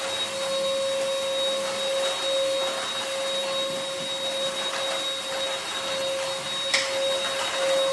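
UML0 N8 cordless stick vacuum running steadily: a constant motor whine over airflow hiss. A single sharp click about seven seconds in.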